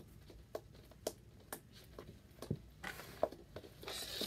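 Slime poked and pressed with fingers, giving short wet clicks and pops about twice a second. Near the end a crinkling of plastic rises.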